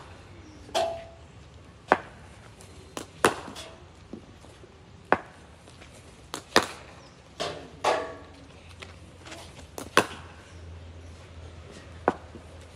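Cricket balls striking bats in practice nets: a series of sharp knocks every one to two seconds, a few with a brief ring after the hit.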